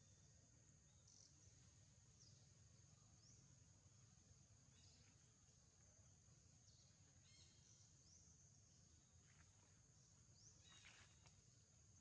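Near silence: a faint, steady high-pitched insect drone, with a scatter of faint short chirps.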